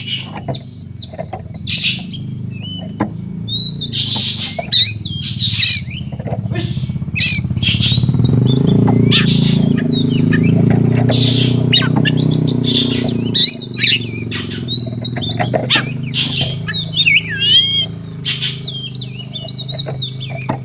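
Oriental magpie-robin (kacer) singing in full, aggressive voice: a fast run of varied whistles, warbles and harsh squawks. A low steady hum rises beneath it from about eight seconds in and fades after about five seconds.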